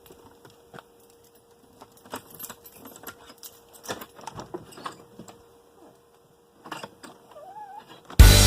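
Faint scattered clicks and light knocks over a thin steady hum, with a short wavering squeak-like tone shortly before the end. Loud rock music then cuts in abruptly near the end.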